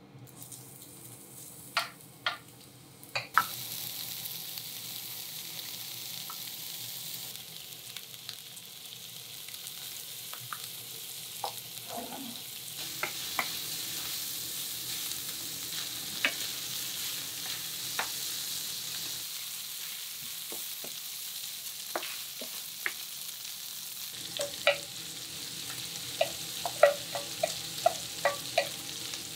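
Food sizzling in an iron frying pan as yakisoba is cooked, the sizzle starting about three seconds in, with sharp clinks of a utensil stirring against the pan that come thick and fast near the end.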